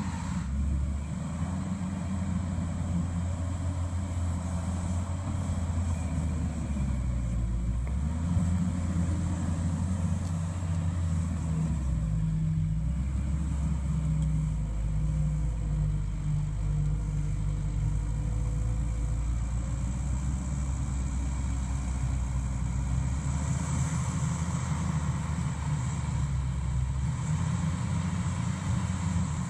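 Mustang MTL325 compact track loader's diesel engine running under load while it pushes dirt, its pitch dipping briefly about twelve seconds in before picking up again.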